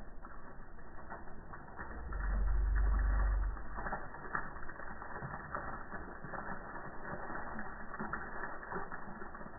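Irregular creaking and clicking of plastic, with a low rumble from about two to three and a half seconds in.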